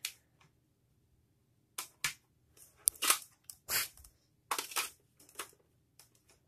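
Handling noise: a string of short rustling and scraping sounds, irregular and without pitch, with quiet gaps between them.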